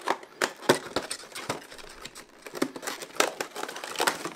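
A cardboard retail box being handled and a clear plastic blister tray slid out of it: a run of irregular sharp clicks and crinkles from the packaging.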